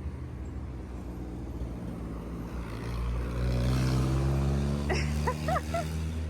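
A vehicle engine running with a low hum that grows louder and rises in pitch about halfway through, as when pulling away or speeding up. A few short high chirps come near the end.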